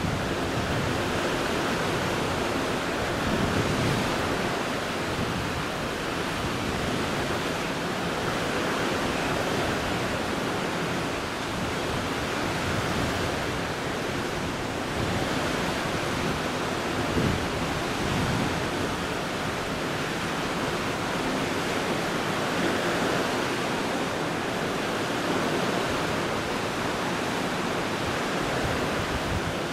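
Steady rush of sea water and wind: an even, unbroken wash of noise with slight swells in level.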